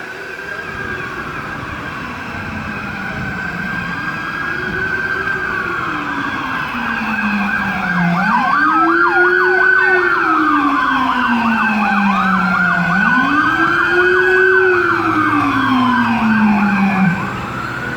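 Emergency vehicle sirens, a slow rising-and-falling wail layered with a fast yelp and a deeper slow wail, growing louder and then dropping off sharply near the end.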